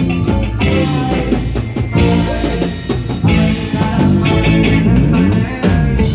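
Loud band music: a drum kit, guitar and keyboard playing an instrumental passage with a steady beat, some notes sliding up and down in pitch.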